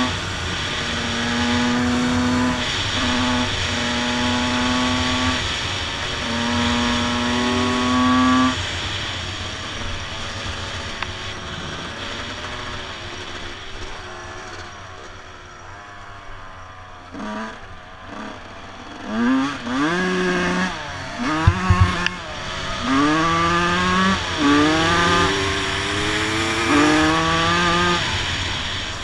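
Two-stroke motocross bikes (Honda CR 250 and Yamaha YZ 125) riding along: first an engine held at steady revs with a few brief throttle-offs, then a steady rush with the engine low, then from a little past halfway repeated rising revs as the bikes accelerate up through the gears.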